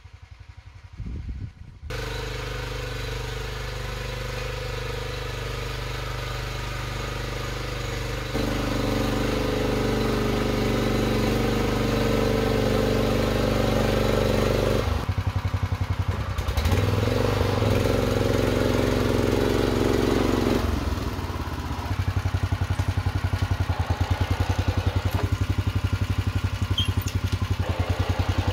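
Walk-behind rotary tiller's small engine running while it pulls a ridging plough through the soil. It jumps louder about two seconds in, then rises and falls in pitch and level several times.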